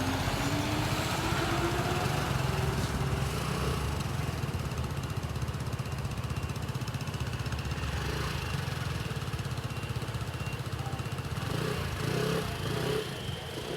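Fire truck's diesel engine running steadily, with a whine rising slowly in pitch over the first few seconds.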